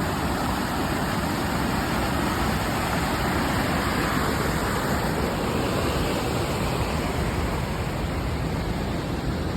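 Waterfall pouring with a loud, steady rush of falling water.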